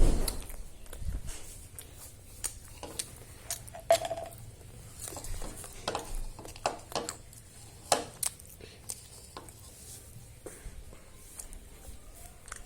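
Light clicks and taps at irregular intervals, about a dozen of them, small objects being handled close to the microphone, with faint room noise between them.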